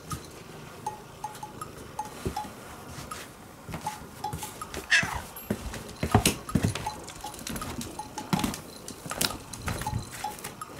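An orange-and-white domestic cat meows once about five seconds in, a short call that rises and falls in pitch, among scattered sharp knocks and rustles. A light, plinking percussive background tune plays under it.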